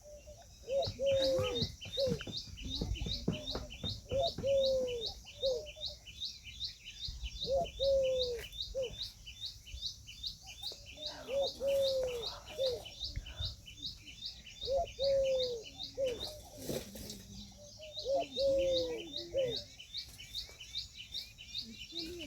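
Indian peahen calling: short low clucks in runs of three or four, repeated every few seconds, over a steady fast high-pitched chirping.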